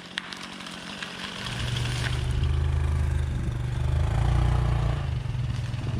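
An engine comes in about a second and a half in and runs steadily at a low pitch.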